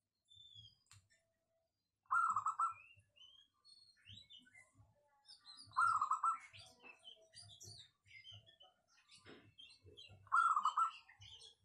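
Zebra dove (perkutut) cooing: three short phrases about four seconds apart, each a quick run of pulsed notes. Higher chirps of other small birds sound between the phrases.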